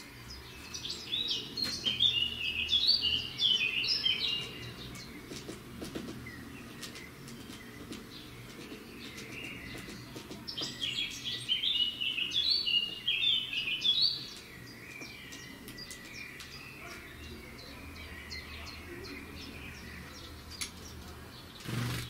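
Great tit chirping in two bursts of quick, high notes a few seconds long, the first about a second in and the second about ten seconds in, with light clicks in between and a dull knock near the end.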